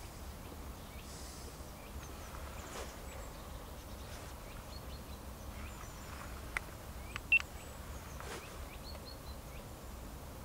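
Open-air riverside ambience: faint chirps of small birds scattered throughout over a steady low background rumble, with a few sharp clicks a little past the middle, the loudest about seven seconds in.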